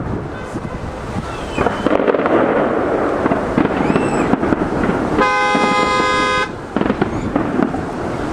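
Fireworks display: a dense run of bangs and crackling bursts. A steady horn blast cuts through for about a second past the middle.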